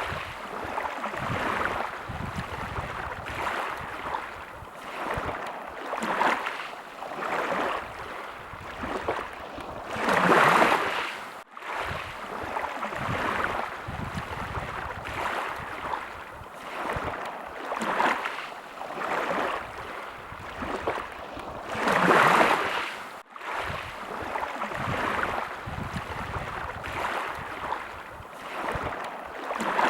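Sea waves washing in one after another, the wash swelling and fading every couple of seconds, with a few larger swells. The sound cuts out for an instant twice.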